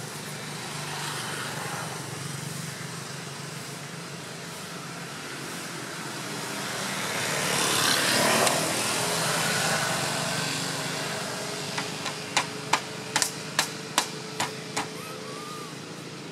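Small engine running steadily, growing louder to a peak about eight seconds in and then fading. Near the end comes a quick run of about eight sharp clicks.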